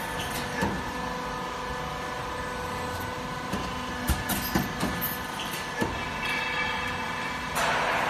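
Cable tray roll forming machine running, making a steady hum with several steady tones as perforated steel cable tray feeds through the forming rollers. Light knocks and clicks come through now and then, and a louder rushing hiss comes in near the end.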